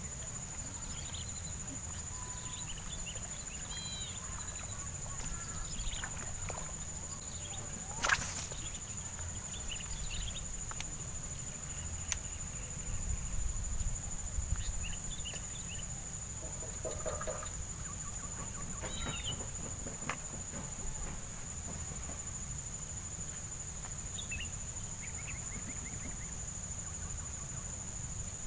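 Outdoor ambience: a steady high-pitched insect drone with scattered bird calls, a sharp click about eight seconds in, and a low rumble underneath.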